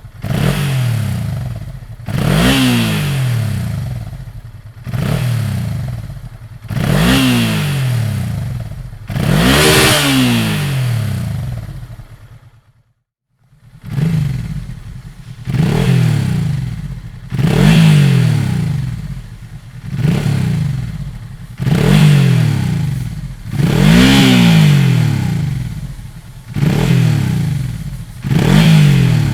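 Honda Transalp XL650V's 647 cc V-twin being blipped again and again through its exhaust, each rev rising sharply in pitch and falling back, about one every two seconds. The sound breaks off for about a second near the middle, then the revving resumes.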